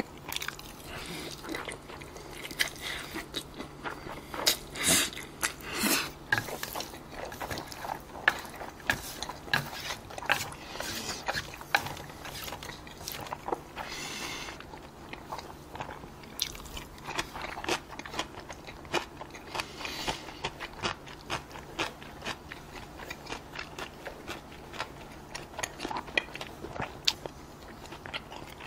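A person eating noodles and beef close to the microphone: steady wet chewing and biting, with several slurps of noodles and many small clicks throughout.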